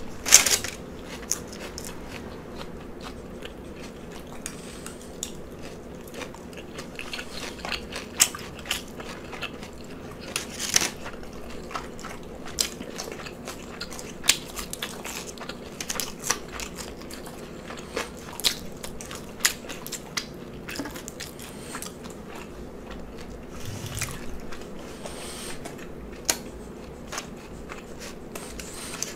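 Close-miked chewing of a lettuce-wrapped cheeseburger slider: irregular sharp mouth clicks and crunches spread through the whole stretch, over a faint steady hum.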